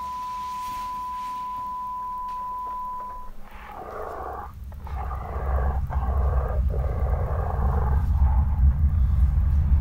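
A steady, high-pitched electronic beep tone holds for about three seconds and stops. Then a deep rumbling drone with a hissing, crackling layer fades in and builds louder to the end, horror-film sound design leading into scary music.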